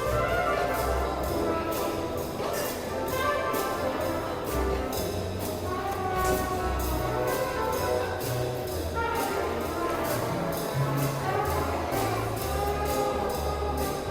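Background music: an orchestral-style piece with brass over a steady percussion beat and a moving bass line.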